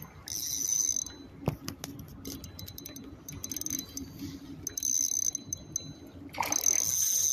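Fishing reel buzzing in several short runs while a hooked fish pulls against the line, with a low hum beneath and a single knock about a second and a half in.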